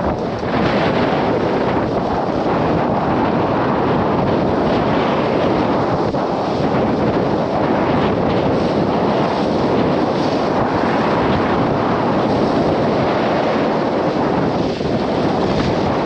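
Strong wind buffeting the microphone over the rush of waves breaking along the hull of a sailboat under sail in rough seas. A loud, steady rush with no letup.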